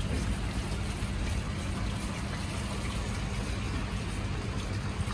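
Heavy rain falling on a wet tarmac car park and its puddles: a steady, even hiss with a low rumble underneath.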